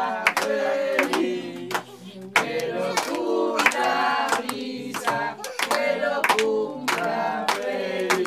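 A group of voices singing a birthday song together, with hands clapping along to the beat.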